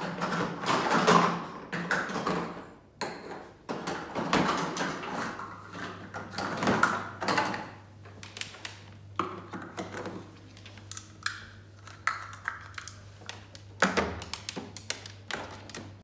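Plastic toys clattering and knocking in a plastic storage bin as a white cockatoo rummages through them with its beak. The taps and knocks are irregular, loudest about a second in and again about two seconds before the end.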